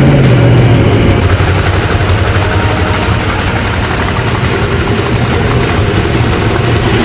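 Monster truck engine running loud and steady, with a fast, even rattle coming in about a second in.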